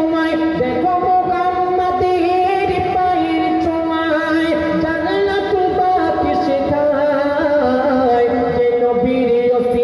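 A young male singer performing a Bengali gojol (Islamic devotional song) into a hand microphone. The melody moves in long held, ornamented notes.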